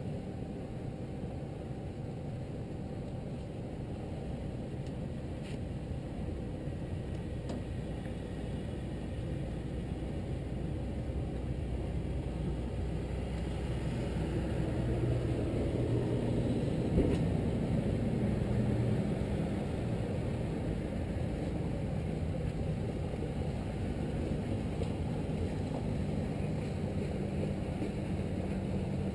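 Boat engine running at idle, a low steady hum that grows louder about halfway through as a small motorboat idles up alongside. A single brief knock sounds near the loudest point.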